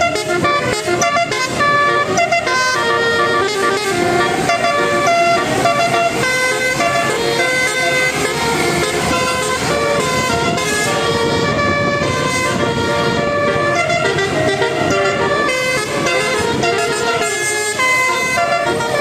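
Bus telolet horn, a set of tuned air horns playing a quick melody of short stepped notes, several pitches sounding together.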